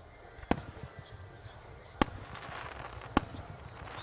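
Aerial firework shells bursting: three sharp bangs, about half a second, two seconds and three seconds in, the middle one loudest, with a faint crackling haze after the second.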